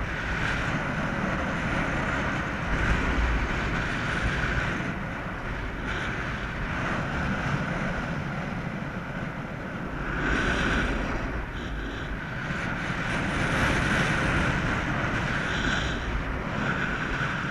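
Wind rushing over the microphone of a camera on a paraglider in flight: a steady noise that swells and eases, stronger about ten and fourteen seconds in.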